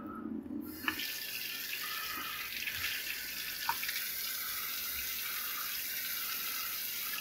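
Water running from a Moen pull-down kitchen faucet's spray head into the sink. About a second in, after a light click, the stream gets louder and hissier, as the spray head's turbo button opens up the flow, and then runs steadily.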